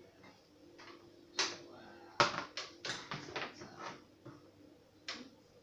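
Craft tools and small pots being handled and set down on a table: a series of light knocks and clicks. The loudest comes a little over two seconds in, several follow close together, and there is one more near the end.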